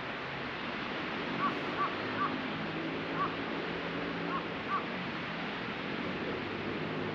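Steady hiss of surf and wind from the sea, with a bird giving six short, clear calls over the first five seconds.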